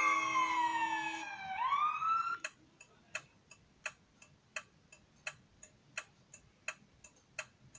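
A siren-like wail over held tones slides down in pitch, swoops back up and cuts off about two seconds in. Then a clock ticks steadily, about three ticks a second.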